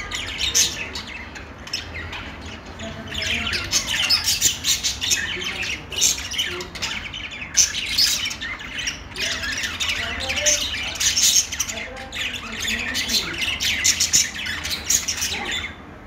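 A flock of budgerigars chattering and warbling together, many quick chirps and squawks overlapping. The chatter thins a little about two seconds in, then grows busier again.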